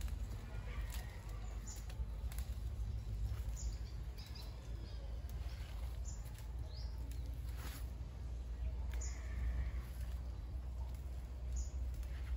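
Short, high bird chirps every second or few over a steady low rumble.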